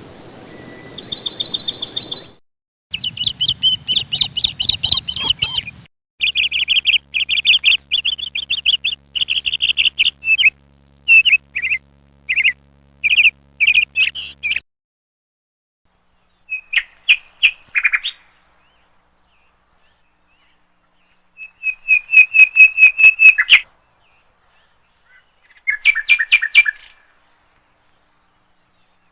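Birds chirping in quick runs of short, high notes. The chirping comes in several separate bursts that start and stop abruptly, with silent gaps in between.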